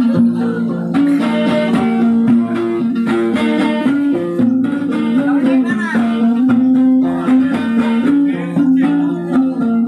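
Music with a plucked guitar carrying the melody over a steady held tone.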